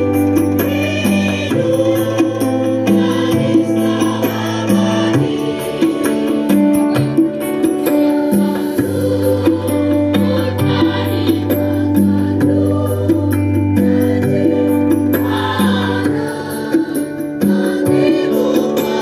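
Large massed student choir singing an Indonesian patriotic song, with long held notes and a steady low line underneath.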